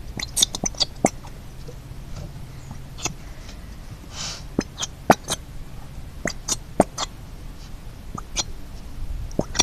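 Bottle of thick glitter glue squeezed out into a bowl, giving scattered short clicks and pops, with a brief hiss about four seconds in.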